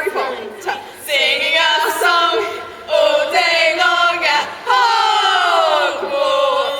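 A group of voices chanting and singing in phrases, ending on one long held note that slides down in pitch.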